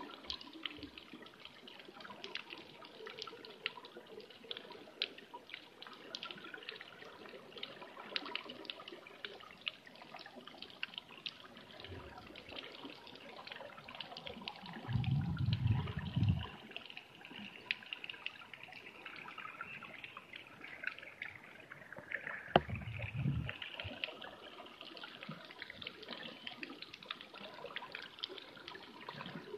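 Underwater ambience in shallow sea water: a steady crackle of many small clicks, with two low rumbles, one about halfway through and one a few seconds later, and a single sharp click at the start of the second rumble.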